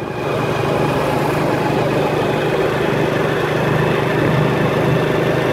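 Steady engine hum and road noise of a vehicle driving along a highway, running evenly without changes in speed.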